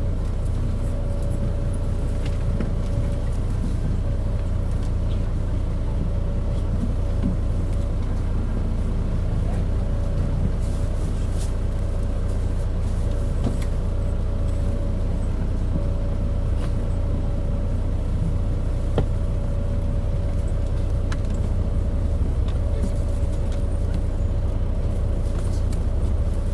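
Mitsubishi Fuso KC-MP617K city bus under way, heard from inside: a steady low engine drone with a high whine over it that drops out for a moment now and then. The bus is running with an abnormal noise, far from this model's normal engine sound, which the uploader takes for some fault or trouble.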